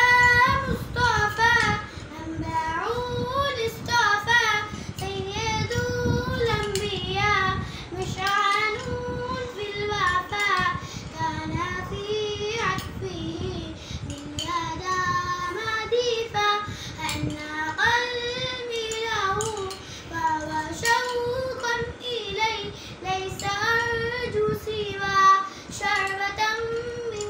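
A young girl singing a naat, an Islamic devotional hymn in praise of the Prophet, solo with no instruments, in long wavering phrases with short breaths between them.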